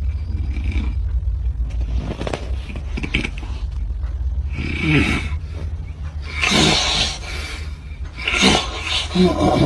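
A man snoring, with a run of loud snores every second or two in the second half, some with a falling voiced grunt. A steady low hum runs underneath.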